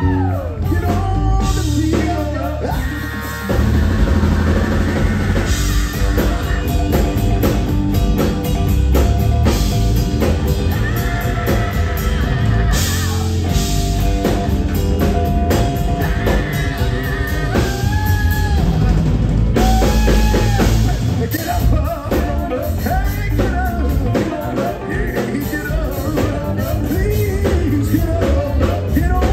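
Live rock band playing: drum kit, guitar and keyboards with a singer on vocals. The band fills out and gets louder about four seconds in.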